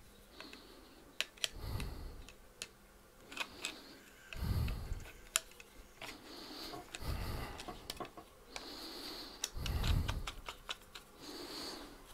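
Small clicks and light rattles of tools and parts being handled on a workbench, with soft muffled bumps every couple of seconds.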